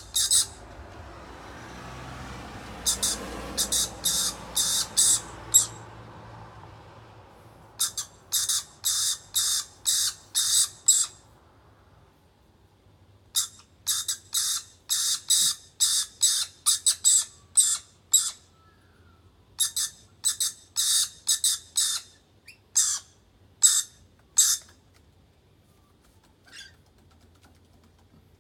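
Rainbow lorikeets giving rapid runs of short, high, scratchy calls, about three a second, in five bouts broken by short pauses, while one bird feeds the other beak to beak. A low rushing noise fades out over the first few seconds.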